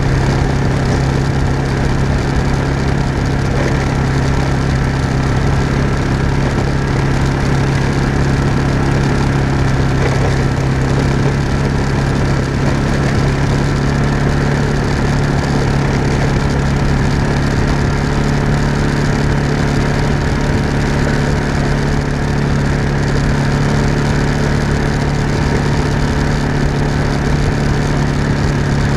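A small off-road vehicle's engine running at a steady, even speed while driving, with its tyres crunching over a gravel track.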